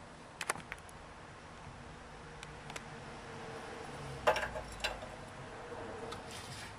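Scattered metallic clinks and taps of hand tools on the motorcycle's footrest fittings, a few light ones near the start and two sharper ones a little past the middle.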